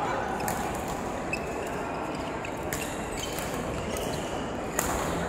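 Badminton rally: several sharp racket hits on a shuttlecock a second or two apart, the loudest near the end, over the steady background noise of a sports hall.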